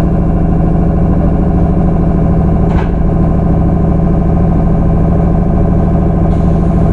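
Onboard sound of a JR 211-series electric multiple unit, heard from inside the motor car: a steady hum of many tones at an even, unchanging pitch over a low rumble, with a short hiss about three seconds in.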